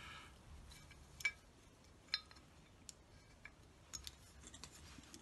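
Faint, scattered clicks and taps of a Dinky toy's parts being handled as a battery is fitted into it; the motor is not yet running.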